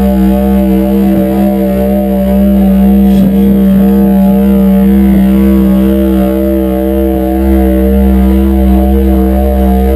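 Loud industrial electronic drone played through PA speakers: a steady chord of several held low tones over a deep rumble, buzzing like an engine.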